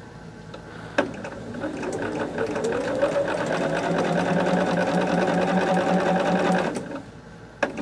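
Bernina sewing machine stitching a seam through quilt fabric: it starts with a click about a second in, winds up to speed, runs at a steady fast stitch, then stops near the end and starts again with another click.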